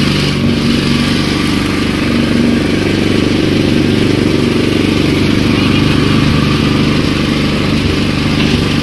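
Small petrol engine driving a sugarcane juicer's ribbed steel rollers, running at a steady speed.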